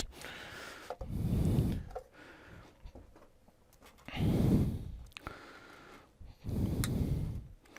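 A person breathing out heavily three times, each breath about a second long.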